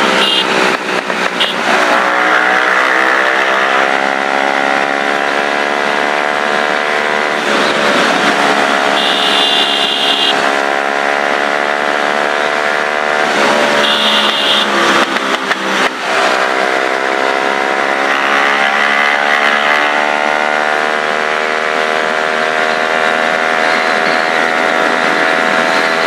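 Motorcycle engine pulling hard through the gears: its pitch climbs for several seconds at a time, then drops sharply at each upshift, four times.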